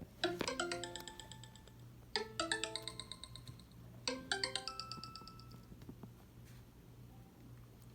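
Nokia 6230i ringtone playing: a short rising run of ringing notes, repeated three times about two seconds apart, each left to ring out, the last dying away a couple of seconds before the end.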